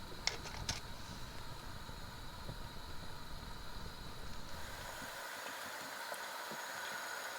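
Portable propane fire bowl burning on a high flame setting, giving a steady rushing hiss with a couple of faint clicks early on. About five seconds in, the low rumble drops out and the higher hiss comes forward.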